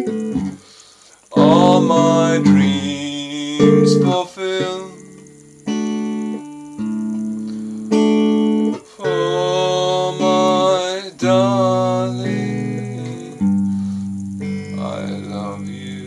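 A man singing while strumming chords on a guitar, each chord struck sharply and left to ring, changing every second or two.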